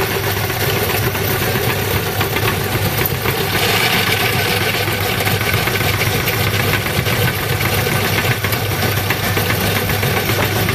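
Motor-driven meat grinder running steadily while grinding maggots, with a harsher, brighter grinding noise added for several seconds in the middle.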